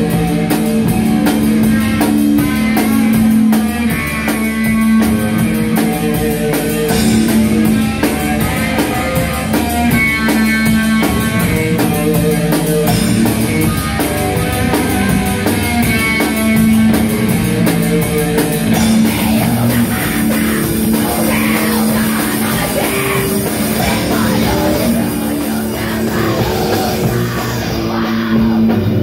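A black metal band playing live: distorted electric guitar, bass and fast drumming, loud and continuous. The rapid drum pattern gives way to a different part about two-thirds of the way through.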